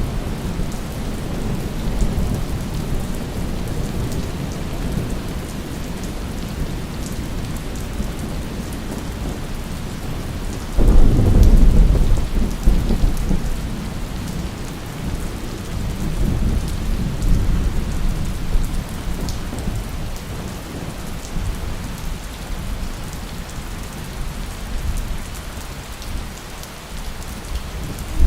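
Steady heavy rain on a surface, with a peal of thunder that breaks in suddenly about eleven seconds in, loud and low, and rumbles away over several seconds.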